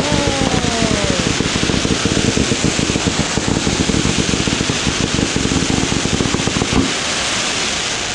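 A long string of firecrackers popping in a rapid, irregular crackle that stops about seven seconds in. A short falling whistle sounds at the start.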